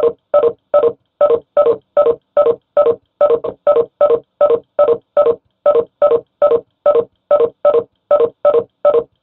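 Online-meeting app's participant exit chime sounding over and over, about two or three short beeps a second, as participants leave the meeting one after another. Each beep is a brief tone of a few pitches together.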